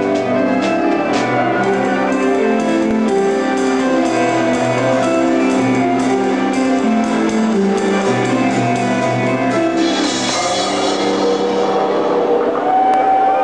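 Progressive metal band playing live: drum kit with cymbal strikes under melodic guitar and bass lines, with a cymbal wash swelling about ten seconds in and a long held guitar note coming in near the end.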